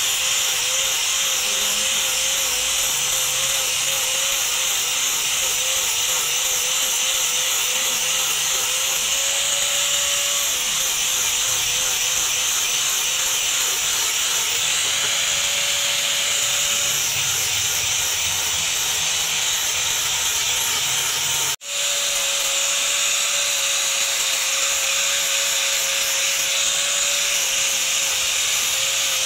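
Angle grinder with a sanding disc running steadily, sanding the wooden handle of a cleaver. The motor's whine wavers as the disc bears on the wood. The sound cuts out for an instant about two-thirds of the way through.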